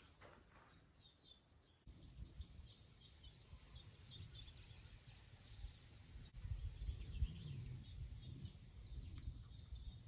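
Faint outdoor ambience of birds chirping and singing, many short repeated calls, with an uneven low rumble of wind on the microphone starting about two seconds in.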